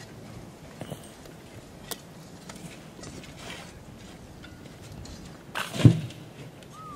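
Light scattered scrapes and footsteps on dirt, with one loud short thud about six seconds in.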